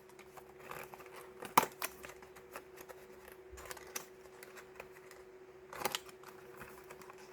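Small plastic stationery packaging being handled: faint clicks and crinkles, with one sharp click about a second and a half in and a brief rustle near the end, over a faint steady hum.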